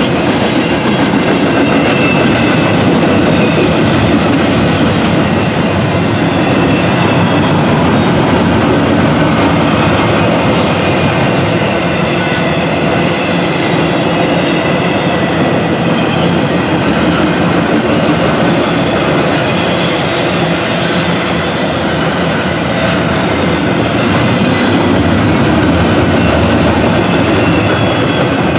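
Double-stack intermodal freight train rolling past close by: a steady loud rumble of wheels on the rails with rhythmic clickety-clack, and a faint high wheel squeal now and then.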